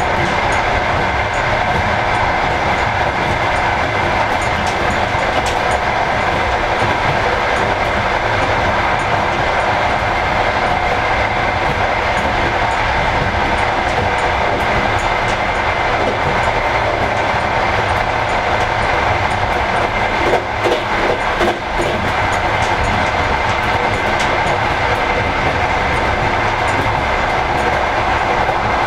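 Passenger train running at speed: a continuous rolling rumble and rail noise with a steady whine, and a brief run of knocks about twenty seconds in.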